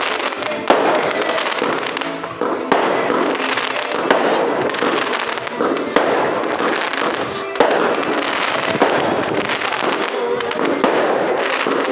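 Homemade fireworks going off: a continuous crackling hiss with sharp bangs about every one to two seconds.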